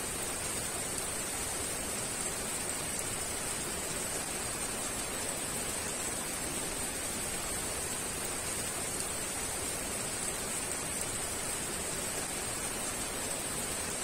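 Heavy rain falling steadily, a dense, even hiss with no separate drops or thunder standing out.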